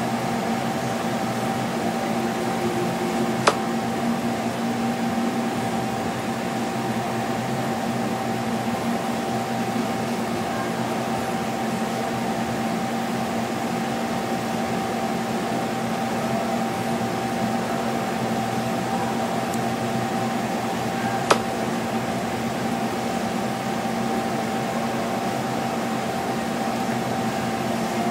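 Steady machine hum with a constant high whine over an even hiss, unchanging throughout. Two single sharp clicks stand out, one a few seconds in and one about three-quarters of the way through.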